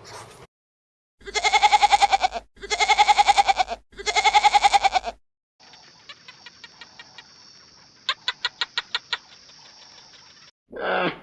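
Three long animal calls in a row, each about a second long and quavering rapidly, followed by a steady high-pitched hiss with a quick run of sharp ticks.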